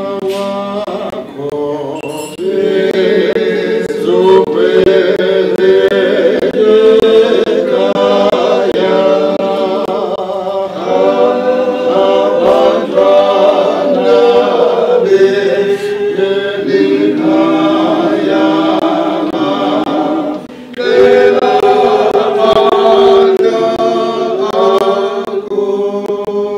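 Congregation singing a hymn together without instruments, in long held notes, with a short break about twenty seconds in.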